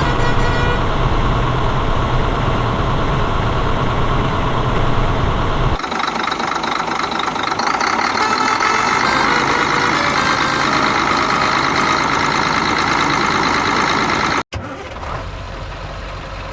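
Truck or construction-machine engine running steadily, with abrupt changes in the sound about six seconds in and a brief dropout near the end.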